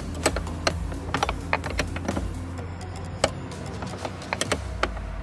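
Metal wrench clicking and tapping on a car battery's negative terminal clamp nut as it is tightened: sharp, irregular clicks a few times a second. A steady low hum sits underneath.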